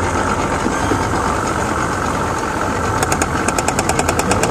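An engine running steadily under a constant rush of noise. About three seconds in, a quick run of sharp clicks begins and goes on to the end.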